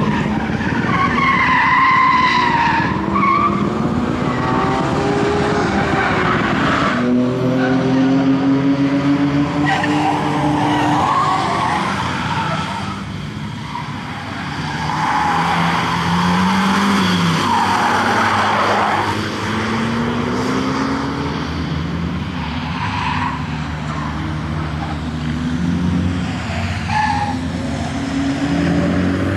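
Ford Focus RS Mk1's turbocharged 2.0-litre four-cylinder revving hard, its pitch repeatedly climbing and dropping through gear changes and lifts as the car is driven at the limit, with tyres squealing through the corners.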